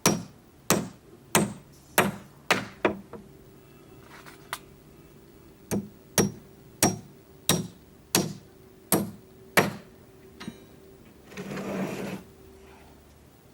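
Hammer blows on timber, struck at a steady pace of about one and a half a second in two runs with a pause of a couple of seconds between them. Near the end comes a short rasping scrape lasting about a second.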